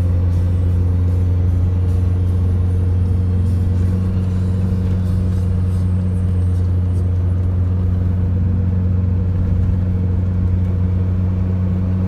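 A vehicle's engine droning steadily while driving at an even speed, a strong low hum with a higher tone above it.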